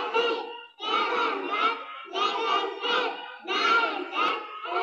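A group of young children singing together in unison into a microphone, in short rhythmic phrases of about a second each with brief breaks between them.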